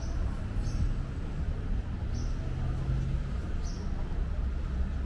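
City street ambience: a steady low rumble of traffic and passers-by, with a few short, high chirps that drop in pitch, spaced irregularly.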